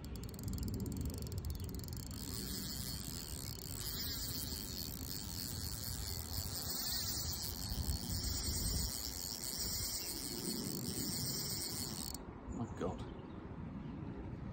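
Fixed-spool reel's clutch ticking in a fast, buzzing run as a hooked mirror carp pulls line off against the drag; it stops suddenly about twelve seconds in. Low wind rumble on the microphone underneath.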